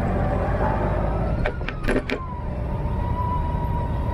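Honda Gold Wing's flat-six engine running at low road speed, with wind and road noise. A quick run of four sharp clicks comes about a second and a half in, then a steady whine.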